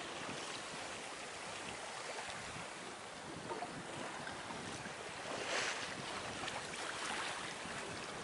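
Choppy sea washing past a sailboat's hull under way, with wind. A louder wash comes about five and a half seconds in.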